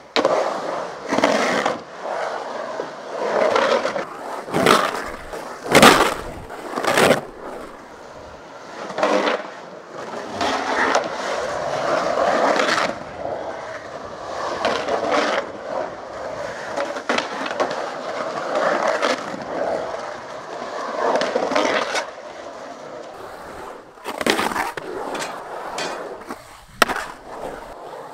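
Skateboard wheels rolling over a concrete bowl, the sound swelling and fading as the rider carves up and down the walls, with truck grinds scraping along the coping. Several sharp clacks of the board hitting the concrete cut through, the loudest about six seconds in and another cluster near the end.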